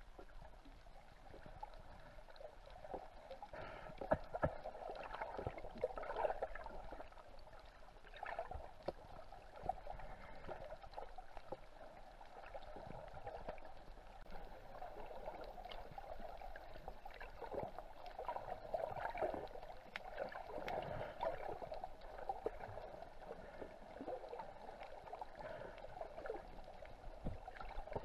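Muffled watery rushing and gurgling picked up by a camera held underwater while snorkelling, with scattered small clicks and crackles throughout.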